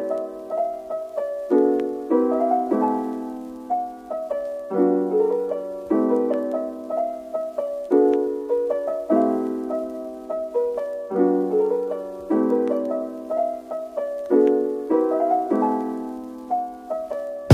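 Background piano music: a gentle piece of melody notes over chords, each struck and fading away.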